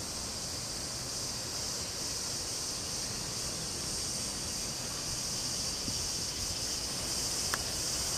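Steady high-pitched drone of a summer insect chorus, unbroken throughout.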